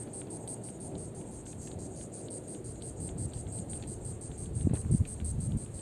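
Insects trilling in the marsh: a high, steady pulsing trill of about ten pulses a second over a low rumble, with a few dull low thumps about three-quarters of the way through.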